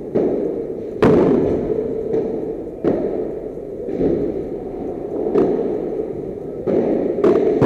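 Padel rally: the ball popping sharply off solid padel rackets and the court, about six hits at uneven intervals of one to two seconds, each ringing on in an echoing enclosed hall.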